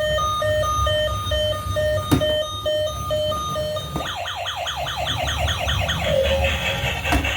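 Toy emergency vehicle's electronic sound chip: a quick two-tone hi-lo siren beeping, which switches about four seconds in to rapid falling chirps about six a second, then to a busy electronic jingle about six seconds in. A low rumble runs underneath, with sharp clicks twice.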